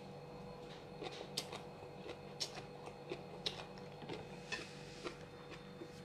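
Irregular sharp clicks and light taps, about one or two a second, over a steady low hum.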